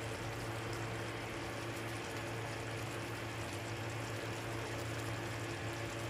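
Coconut-milk stew of shrimp, pumpkin and string beans simmering in a pan, a steady bubbling hiss over a constant low hum.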